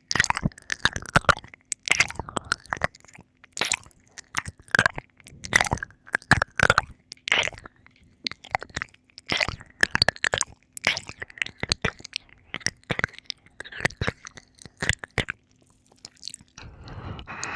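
Close-miked wet mouth sounds of ear-licking ASMR: tongue and lip smacks and clicks in short clusters about once a second, with a breathy exhale near the end.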